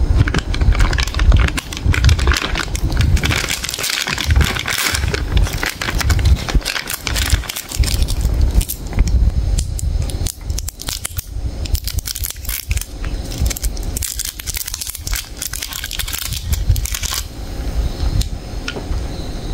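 Plastic sweet bag and the twist wrapper of a toffee crinkling and crackling as they are handled and opened: first the bag, then one sweet's wrapper untwisted. The crackle is dense and irregular, with some dull bumps of handling.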